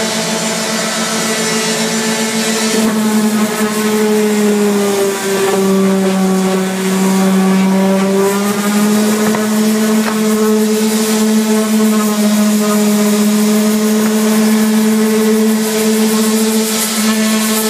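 Corded electric sander running on a countertop surface being sanded for refinishing: a steady motor hum that drops a little in pitch about five seconds in and comes back up about three seconds later.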